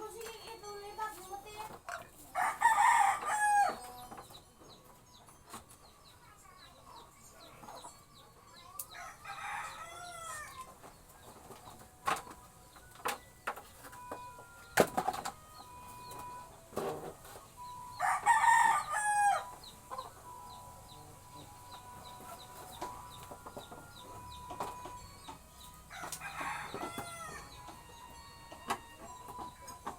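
A rooster crowing four times, roughly every eight seconds, each crow a long call of over a second. Sharp knocks and clinks come in between, one louder knock about halfway through.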